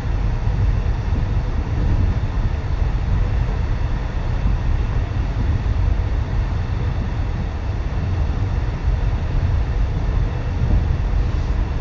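Electric suburban train running at speed, heard from inside the carriage: a low, steady rumble.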